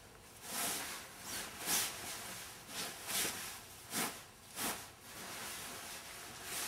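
Rustling swishes of a full ball-gown skirt with tulle and lining, worn over a hoop skirt and petticoat, as the fabric is spread and smoothed by hand. It comes as a series of brief swishes, several a second apart at times.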